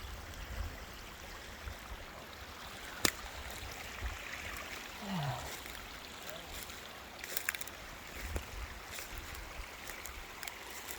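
Faint outdoor ambience: a steady hiss like a small stream or trickle of water, with low wind rumble on the microphone and a few scattered sharp clicks.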